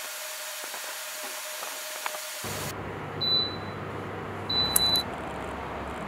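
Portable evaporative air cooler running: a steady airy hiss with a faint hum, changing about two and a half seconds in to a low rumble. Two short high electronic beeps come a little over a second apart, the second longer and with a click.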